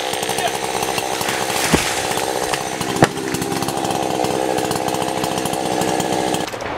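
Chainsaw running steadily, then shutting off near the end. Two sharp cracks come about two and three seconds in as the felled cottonwood comes down.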